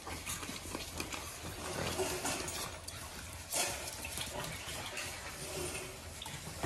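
French bulldog puppies playing and scuffling on a tiled floor: small clicks and knocks of paws and bodies with little noises from the puppies, and one louder short sound about three and a half seconds in.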